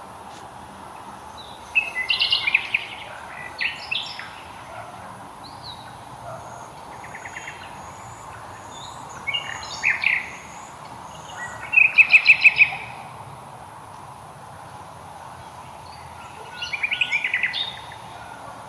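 Songbirds singing in short bursts of quick chirping phrases and trills, the loudest a fast run of about eight notes near the middle, with thin high notes in between over a steady background hum.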